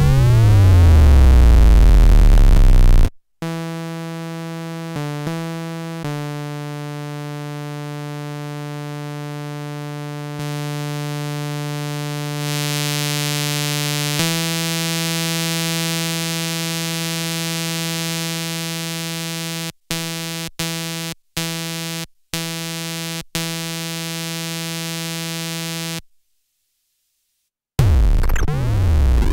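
Arturia MiniFreak synthesizer playing. First come falling pitch sweeps over a deep low end. After a brief gap comes one long held note, rich in overtones, with a hiss that swells about twelve seconds in. The note cuts out several times in quick succession, goes silent for about two seconds, and the falling sweeps return near the end.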